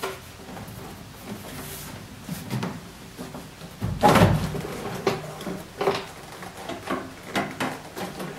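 Car door trim panel being pulled off the door, its plastic retaining clips letting go: a few scattered clicks, then a loud clatter about four seconds in as the panel comes free, followed by lighter knocks as it is handled.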